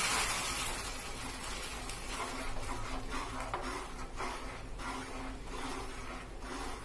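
Hot caramelized sugar sizzling as it is stirred into a bubbling milk-and-flour mixture in a non-stick pan. The hiss fades over the first second, then a spatula scrapes and sloshes through the mixture in repeated strokes.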